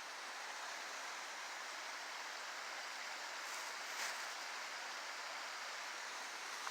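Steady rushing of a river flowing fast in the distance, an even hiss with no change, with one faint tick about four seconds in.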